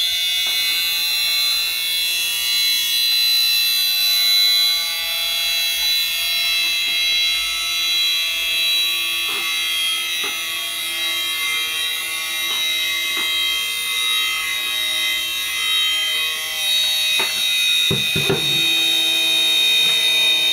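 High-pitched whine of an aircraft autopilot gyroscope platform's gyro rotor spinning at speed, coasting unpowered with its supply cables removed. A few light knocks come from the housing being handled, and a louder cluster of knocks near the end as the unit is set down on the table.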